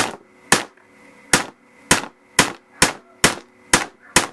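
About nine sharp hammer taps, roughly two a second, drive a fiber-optic rifle sight sideways into its dovetail on a Ruger 10/22.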